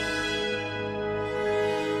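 Background music with long held chords over a steady low note.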